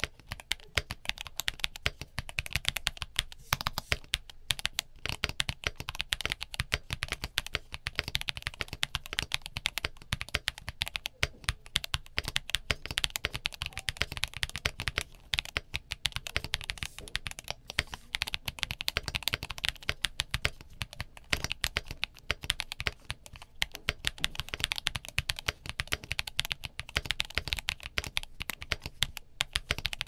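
Typing on a stock Cidoo x FinalKey V65 R2 mechanical keyboard with Quark linear switches and DS Cherry Frosted keycaps: a rapid, unbroken stream of key strokes.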